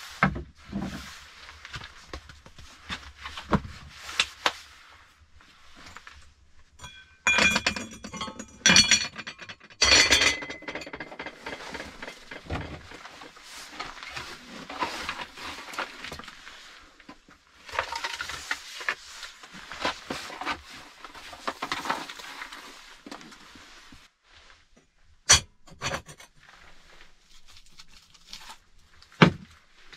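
Hand work with objects: a run of clinks and rattles, then a long stretch of scraping and rustling, with a couple of sharp knocks near the end.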